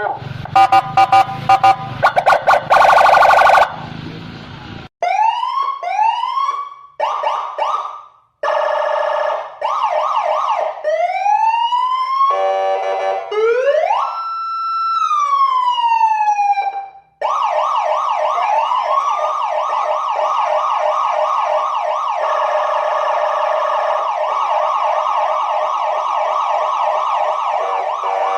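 Indonesian police escort (patwal) electronic siren cycling through its tones. It starts with rapid chirps and a short blaring blast, moves to short rising whoops, then one slow rising and falling wail, and switches about 17 seconds in to a fast, steady yelp.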